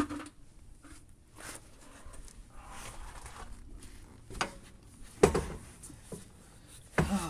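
Scuffs and a few knocks as a car wheel is fetched and handled. The loudest is a sharp knock about five seconds in, with another near the end.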